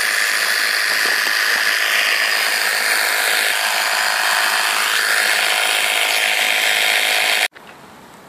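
Air compressor running steadily as it inflates a freshly plugged car tyre. It is a loud, even, hissy drone that cuts off abruptly near the end.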